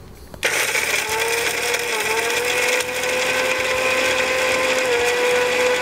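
Electric mixer grinder with a small stainless steel jar switched on about half a second in and running steadily at full speed, grinding cashew nuts into powder. Its whine dips briefly twice as the nuts load the blades.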